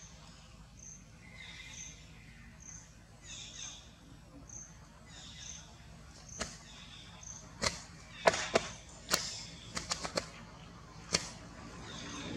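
Outdoor ambience with a short, high chirp repeating about once a second, then a run of about nine sharp clicks or taps in the second half, the loudest of them a little past the middle.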